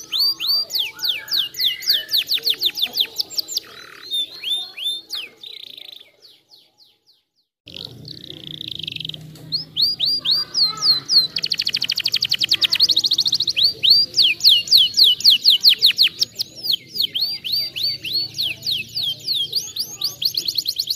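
Domestic canary singing: long runs of rapid, downward-sweeping whistled notes and fast trills. The song breaks off for about a second and a half roughly six seconds in, then resumes with a very fast trill.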